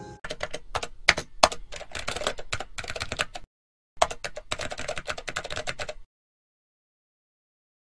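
Computer keyboard typing sound effect: two runs of rapid key clicks, one of about three seconds and then, after a half-second pause, one of about two seconds.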